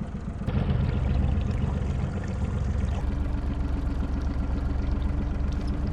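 Boat motor running steadily at trolling speed, with a low rumble; it gets louder about half a second in, and a steady hum joins about three seconds in.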